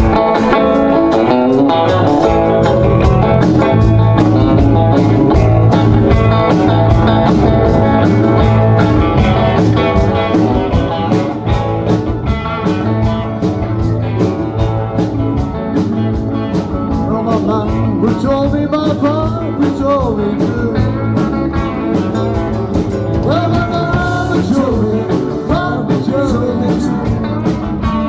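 Live rock band playing electric guitars, keyboard, bass and drums, with a steady drum beat throughout. Pitch-bending lead lines come in during the second half.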